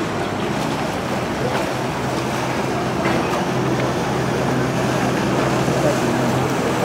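Inboard engine of a loaded cargo boat running steadily as it passes, a low hum over the wash of churned water.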